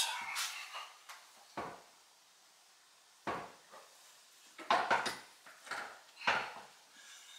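A handful of separate knocks and clunks from a Procar bucket seat and its metal seat brackets being set down and shifted into place on the car's floor brackets for a test fit.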